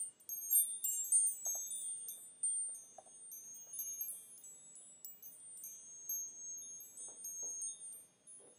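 High-pitched chimes ringing, struck at random so the notes overlap, densest at first and thinning out to a fade near the end.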